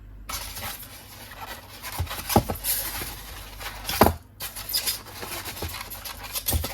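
Rubbing and scraping of a die-cast toy being handled and pulled from its styrofoam packaging, with a few light knocks, the sharpest about two and a half and four seconds in.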